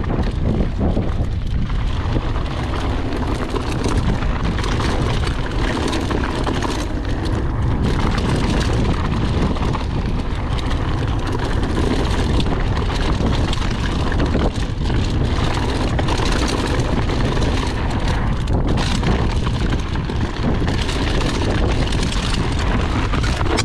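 Mountain bike riding fast downhill on loose, dry dirt: steady wind rush and buffeting on the handlebar-mounted camera's microphone over the rumble and crunch of the tyres on the gravel trail.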